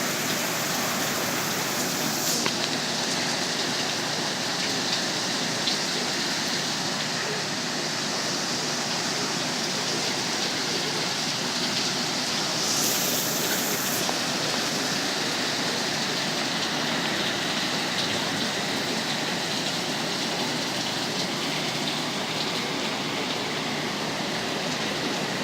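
Heavy rain falling steadily in a severe thunderstorm, an even hiss; a brighter high hiss cuts off about two and a half seconds in and returns briefly around thirteen seconds.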